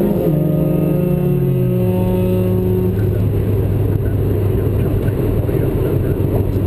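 Car engine whose pitch steps down over the first two seconds and then holds at a steady low pitch.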